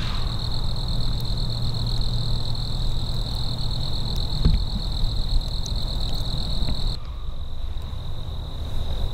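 A steady, high-pitched trilling chorus of insects over a low rumble. The trilling drops in level about seven seconds in.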